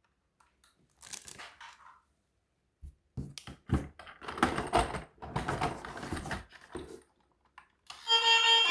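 Plastic toy vehicles being handled and moved about: irregular bursts of clattering, scraping and crunching, quiet for the first second and busiest in the middle. Music starts near the end.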